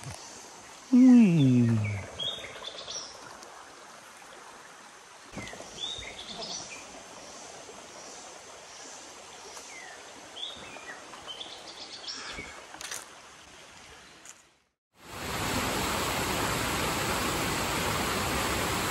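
Jungle ambience: scattered short bird chirps over a faint, steady high insect hum, with one loud call that falls in pitch about a second in. Near the end the scene cuts to a loud, steady rushing noise.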